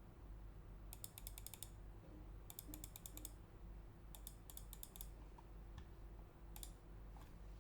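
Typing on a Jelly Epoch 75% mechanical keyboard with a polycarbonate plate, tactile Holy Panda R3 switches and GMK keycaps. There are four short runs of quick keystrokes with pauses between them.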